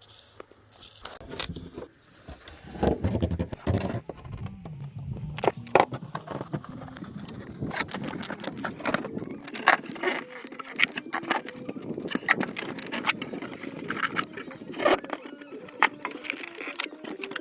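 Irregular clicks, taps and scraping of hands working with parts and tools.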